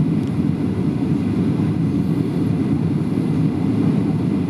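Steady low rumble of engine and airflow noise inside the passenger cabin of a Boeing 737-700 (CFM56-7B turbofans) on final descent.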